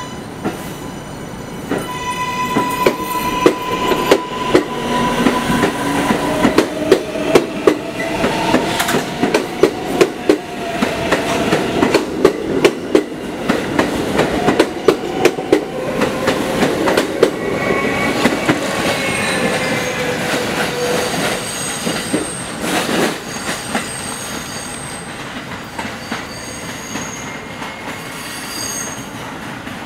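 New York City Subway train pulling out of the station. Its traction motors whine in gliding tones as it speeds up, and its wheels click over the rail joints in a long run of sharp clicks. Near the end come high-pitched wheel squeals.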